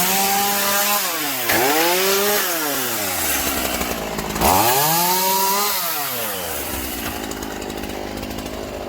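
Gas chainsaw cutting the wooden posts of a playset, its engine revving up and dropping back three times, then running lower toward the end.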